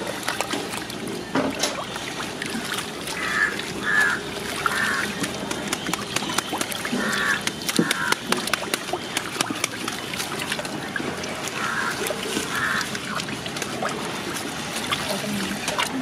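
A hand sloshing and swirling a milky mixture in a large metal vessel, with small splashes and clicks against the metal. Short calls in groups of two or three sound in the background several times.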